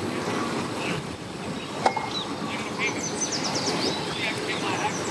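Steady hum of a boat engine idling at the dock, with birds chirping in short quick runs about three seconds in and again near the end, and one sharp click about two seconds in.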